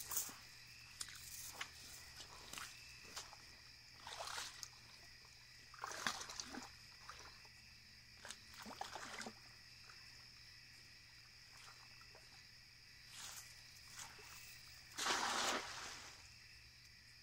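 Water sloshing and splashing in short bursts as a cast net is worked in the water, the largest splash about fifteen seconds in. Insects trill steadily behind it.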